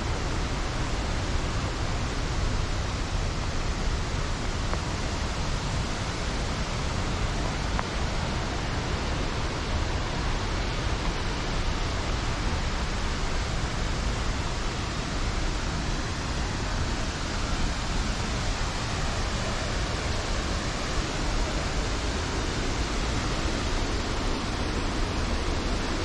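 Steady rushing roar of Athirappilly Falls, even and unbroken.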